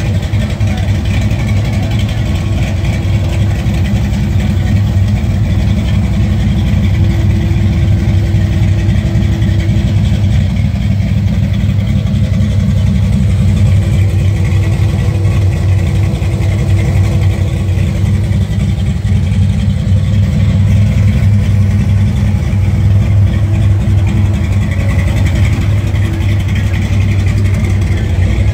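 The 1965 C10's LSX V8 idling steadily, a constant low engine note at an even level throughout.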